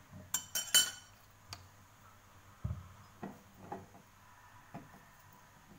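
Light clicks and knocks of bottles and a spoon being handled on a kitchen counter: a quick cluster of sharp clicks in the first second, then a few scattered softer knocks.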